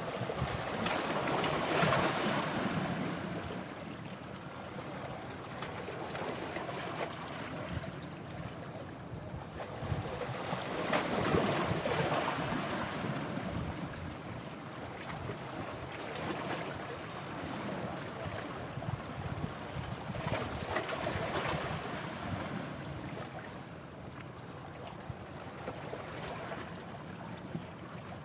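Sea surf: waves washing ashore, with three swells about ten seconds apart.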